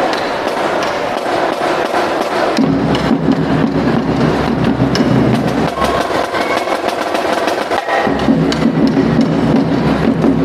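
School drumline playing snare and tenor drums: rapid, dense stick strokes and sharp clicks. A deeper, fuller layer joins about two and a half seconds in, cuts out for a moment near eight seconds, then comes back.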